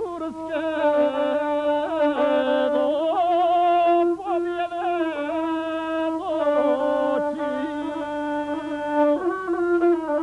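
Gusle, the one-string bowed fiddle of South Slavic epic song, playing a melody that stays close to one pitch, decorated with quick trills and short slides.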